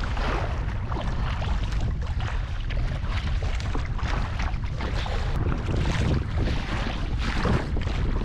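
Strong wind buffeting the microphone in a kayak on choppy water, a constant low rumble, with repeated splashes of water against the boat every second or two.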